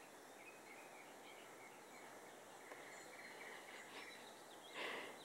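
Near silence: faint outdoor background with a few faint, short bird chirps. A brief soft noise comes near the end.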